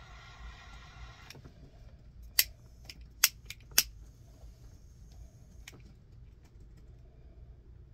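Sharp clicks of small metal and plastic parts as a shielded Cat 6 connector is worked onto a cable end by hand: three loud clicks about half a second apart in the middle, with a few fainter ones. A steady buzzing tone stops about a second in.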